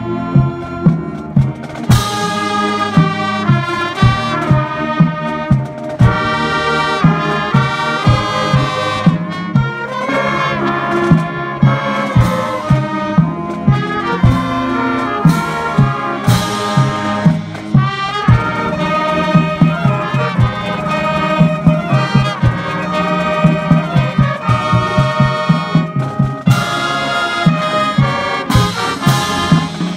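Marching band playing a piece: trumpets, trombones, saxophones and clarinets carry the tune over a steady drum beat.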